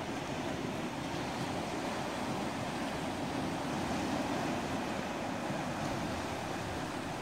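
Sea surf washing over a rocky shore: a steady rush of wave noise, with wind.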